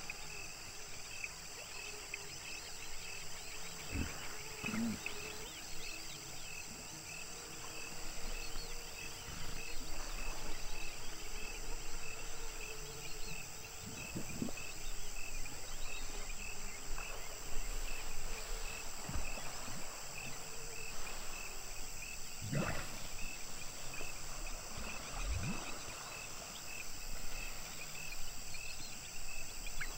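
Hippos calling several times at intervals, deep sweeping grunts, over a steady, evenly pulsing high night chorus.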